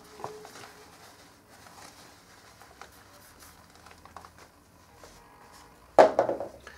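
Whiteboard eraser rubbing across the board with small taps, fading out after about a second, then a single sharp knock about six seconds in.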